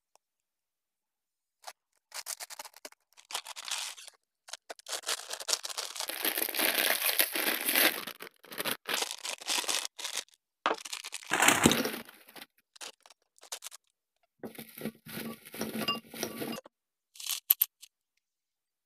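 Paper gift bag and a plastic bag of wrapped chocolate caramels rustling, crinkling and tearing as they are opened, in irregular bursts with short pauses. Later the foil-wrapped candies tumble and clink into a glass bowl.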